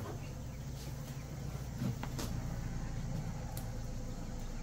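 A steady low hum, with soft rustling and a few light knocks as a man climbs off a parked motorcycle; the clearest knock comes about two seconds in.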